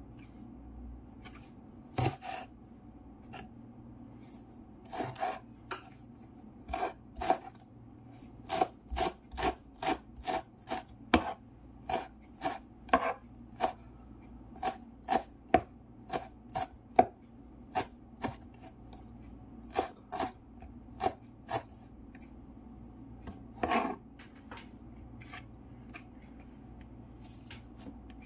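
Kitchen knife chopping fresh dill on a wooden cutting board: a run of sharp knocks as the blade hits the board, about two a second, with pauses between runs.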